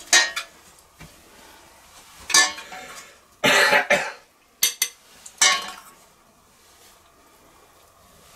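A serving utensil scraping and knocking in a stainless steel pot as Spätzle are dished out: about six short scrapes and clinks in the first six seconds, then quiet.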